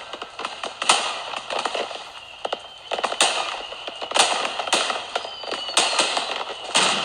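Fireworks sound effect: a string of sharp bangs, roughly one every half second to second, with crackling between them and a faint whistle in the middle.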